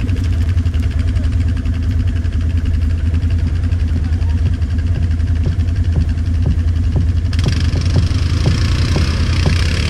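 ATV engine running steadily with a deep, even hum. A brighter hiss joins about seven seconds in.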